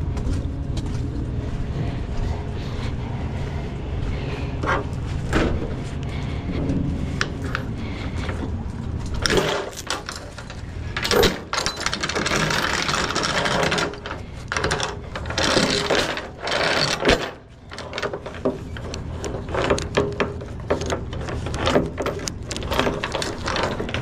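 Steel transport chain rattling, scraping and clinking as it is pulled across a flatbed trailer's deck and rail by gloved hands. Long stretches of rattling in the middle are followed by many short link clinks near the end, over a steady low hum.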